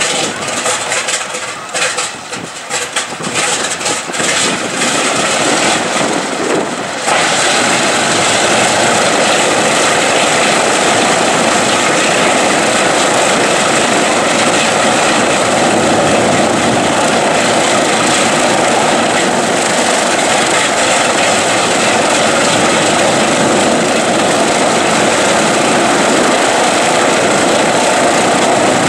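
Boeing B-29 Superfortress Wright R-3350 radial engine starting: it fires unevenly in irregular coughs for the first several seconds, catches about seven seconds in, and settles into a steady loud run.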